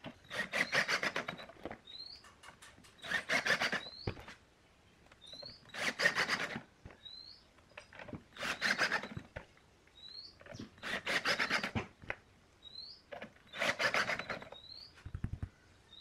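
Hitachi cordless drill/driver driving screws through a woofer's metal frame into the wooden speaker cabinet: six short whirring, rattling runs, one per screw, about every two and a half seconds.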